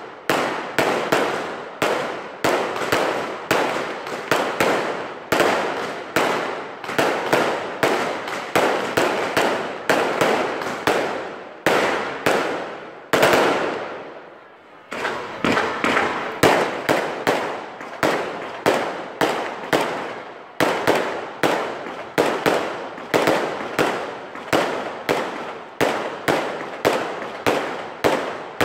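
Aerial fireworks display: shells bursting in rapid succession, a sharp bang about every half second, each fading out before the next, with a short pause about halfway through.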